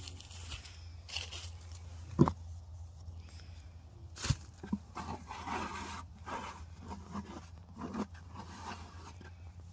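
Hand-laying wet mortar on a stacked-stone foundation: hands scooping from a plastic bucket and pressing mortar onto the rocks, with scattered scrapes and rustles and a couple of sharp knocks, the loudest about two seconds in and another a little after four seconds.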